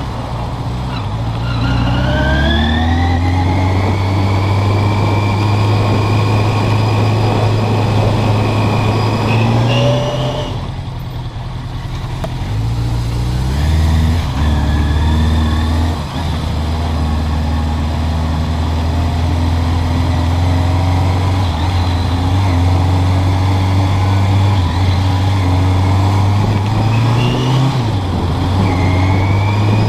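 Suzuki GS650G Katana's air-cooled inline-four engine pulling away, its note rising as it accelerates, then running steadily at city speed. About ten seconds in the throttle closes and the engine note drops away briefly before it pulls again, with another rise near the end.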